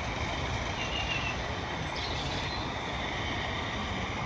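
Small 32mm-gauge live steam locomotive running with its coaches on the garden railway track, a steady rushing noise.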